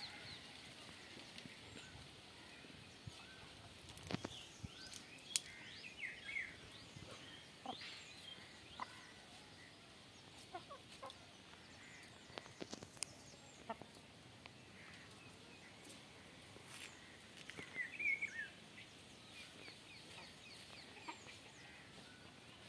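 A small flock of chickens foraging, with soft clucks and short chirpy calls scattered throughout. There are also a few sharp clicks.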